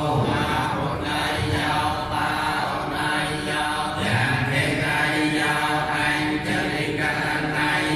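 A group of Cambodian Buddhist monks chanting together in unison. Many male voices hold a steady, level recitation tone.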